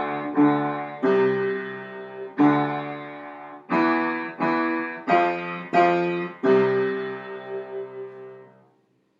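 Piano playing a slow beginner melody in a low register, one note per beat: a D, then a held C, a held D, two Es, two Fs, and a long final C that rings and fades away near the end.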